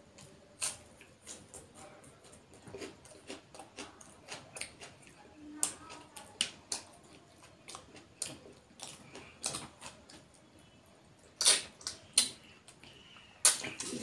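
A man chewing and eating with his mouth close to the microphone: irregular wet smacks and clicks, a few every second, with the loudest ones about two-thirds of the way in and again near the end.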